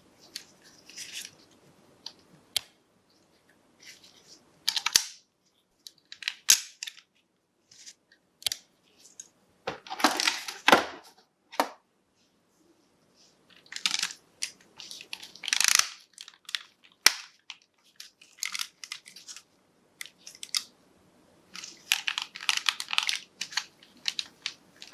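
Packaging being handled and opened by hand: irregular bursts of rustling and crinkling with scattered sharp clicks and taps.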